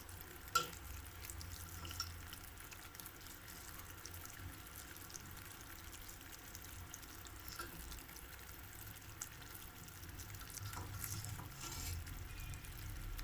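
Sugar syrup simmering faintly in a pan on the stove, cooked to one-string consistency, with a couple of light clicks near the start.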